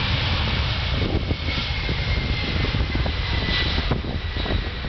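Airbus A300-600ST Beluga's two General Electric CF6 turbofan engines at takeoff power during its takeoff roll: a loud, steady jet roar with a thin high whine that slides slightly lower in pitch.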